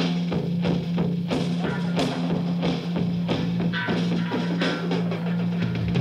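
Recorded post-punk rock music: a drum kit beating steadily over a held bass note, with guitar.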